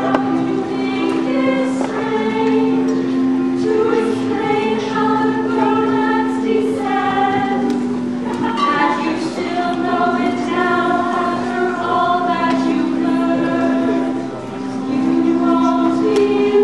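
Women's vocal group singing together in harmony, with long held low notes under a moving melody.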